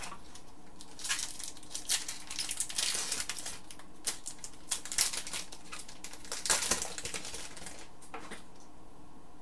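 Crinkling and tearing of a trading-card pack's foil wrapper as it is opened by hand: a run of irregular sharp crackles starting about a second in and stopping near the end.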